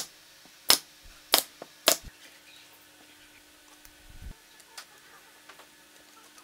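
Pneumatic nail gun firing four times in quick succession, about half a second apart, each a sharp crack as a nail is driven into plywood. A soft low thump follows a couple of seconds later.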